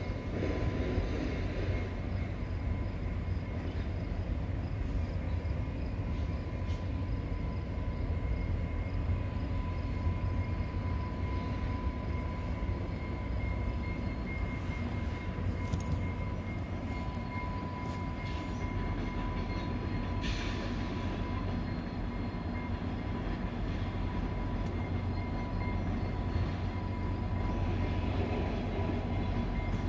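VIA Rail passenger train, a diesel locomotive hauling coaches, passing at a distance: a steady low rumble with a thin, steady high whine over it.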